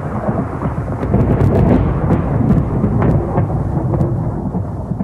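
Thunderstorm: a long roll of rumbling thunder over rain, loudest in the middle, with a few sharp crackles.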